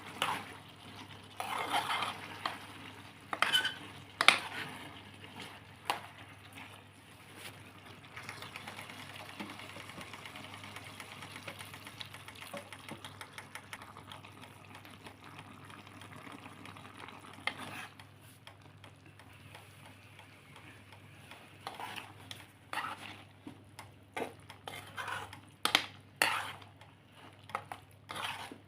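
A metal utensil stirring food in a cooking pan, with sharp clinks and scrapes against the pan near the start and again near the end. Through the middle the sound settles into a steadier sizzle with quick small stirring clicks.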